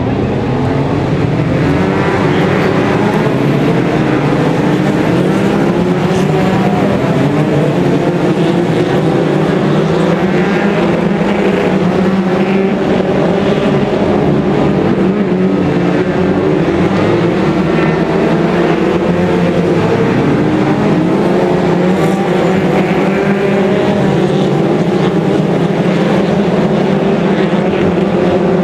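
Several winged oval-racing stock cars at racing speed, their engines running together in a loud, continuous mix whose pitches keep wavering up and down as the cars lap the dirt track.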